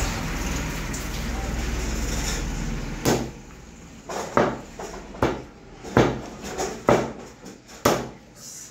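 Meat cleaver chopping raw chicken on a wooden chopping block: six sharp chops, about one a second, beginning about three seconds in. Before the chopping there is a steady low hum with background noise.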